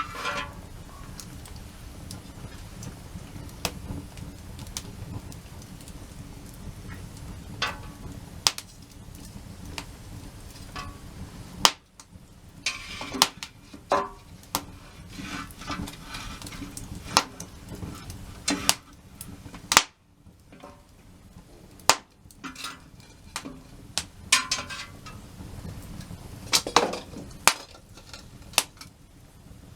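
Wood fire crackling and popping, with irregular sharp snaps over a low steady rush of the burning.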